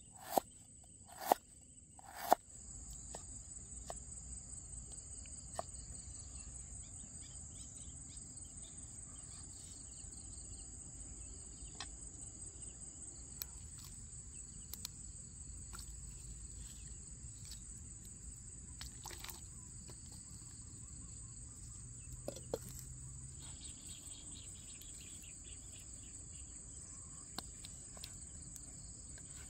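Cleaver chopping on a wooden chopping board, three sharp strokes in the first couple of seconds, then a steady high-pitched insect chorus with a few faint scattered clicks.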